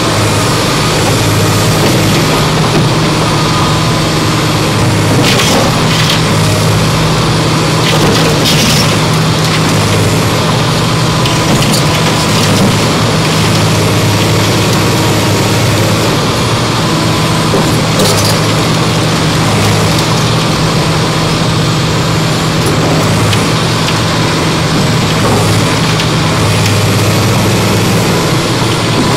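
Tracked hydraulic excavator's diesel engine running steadily, its note stepping up and down as the hydraulics take load while the bucket works the top of a stone wall. A few sharp knocks of the bucket striking stone stand out.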